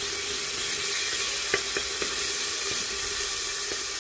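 Crushed garlic sizzling in a little hot oil at the bottom of a metal pressure cooker as a wooden spoon stirs it. The spoon knocks lightly against the pot a few times. It is a quick fry, kept short so the garlic does not burn.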